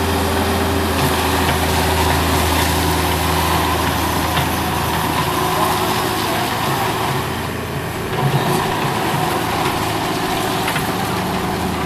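Cat 305 mini excavator's diesel engine running steadily while the machine works its hydraulics. The sound eases slightly about eight seconds in.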